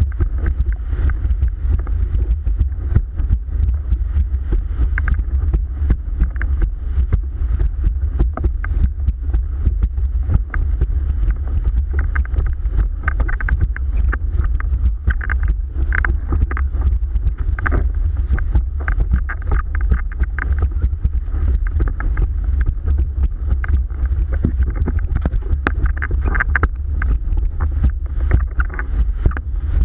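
Heavy wind buffeting on the microphone over rushing water, with frequent sharp slaps and knocks as a Tabou Rocket windsurf board planes fast over chop.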